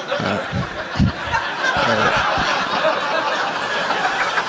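Live audience laughing together after a punchline: a dense, loud wash of laughter, with a few individual laughs standing out in the first second or so.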